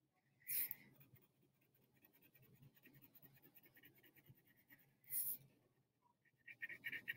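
Wax crayon rubbed quickly back and forth on paper, faint and scratchy, getting louder near the end. Two brief, louder hissing sounds come about half a second in and again about five seconds in.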